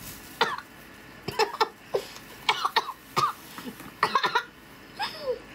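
A woman coughing and letting out short, pained vocal cries with her mouth full, about six in a row, as she reacts to the burning heat of heavily chilli-coated seafood.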